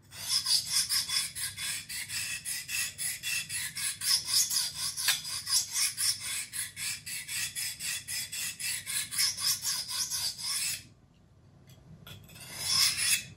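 Sandvik 12C27 steel folding-knife blade being drawn quickly and repeatedly across a handheld Tyrolit sharpening stone, a rasping scrape about four strokes a second. The strokes stop about eleven seconds in; one more longer scrape follows near the end.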